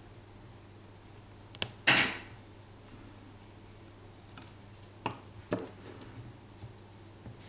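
Small metal tools being handled at the workbench: light clicks and clinks of tweezers and a soldering iron, with a sharp click and then a louder clink about two seconds in, and two more knocks a little after five seconds.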